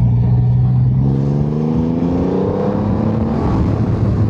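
Triumph Rocket 3 R Storm's 2.5-litre inline-three engine on its stock exhaust, accelerating hard: its pitch climbs for about two and a half seconds, then falls back near the end.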